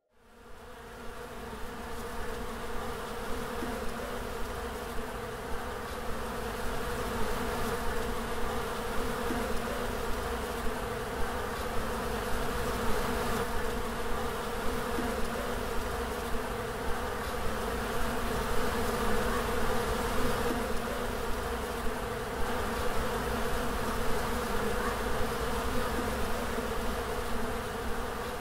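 Bees buzzing in a steady swarm drone that fades in over the first two seconds, with a soft regular tick about every two-thirds of a second.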